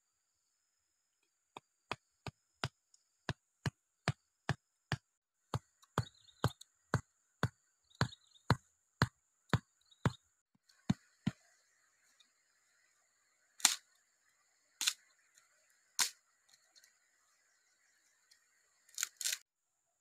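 Sharp wooden knocks, about two a second for some ten seconds, as a wooden stake is pounded into the ground with a wooden stick. They are followed by a few louder, more widely spaced strikes and a quick double strike near the end.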